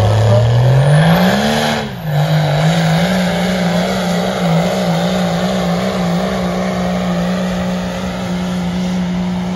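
Diesel Dodge Ram pickup's Cummins turbo diesel revving up hard over the first couple of seconds, then dipping briefly and running at high, slightly wavering revs under heavy load as it drags a weight-transfer pulling sled. A faint high whistle rises with the revs at the start.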